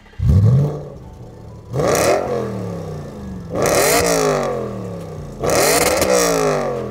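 Audi B8 RS4's 4.2-litre V8 free-revving through a Milltek Sport Super Non-Resonated exhaust, which keeps only the two rear silencers. There is one short sharp burst just after the start, then three longer revs about two seconds apart. Each rises fast and falls back toward idle.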